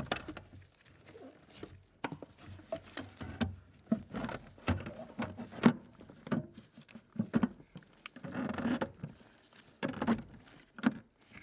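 Ford EEC-IV engine control module's metal case being slid into its mounting by gloved hands: scattered light knocks, clicks and short scrapes as it is worked into place.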